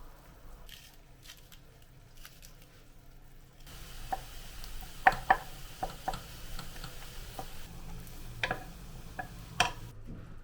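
Kitchen handling sounds: a few sharp clicks and taps of utensils and dishes over a soft hiss that starts about four seconds in.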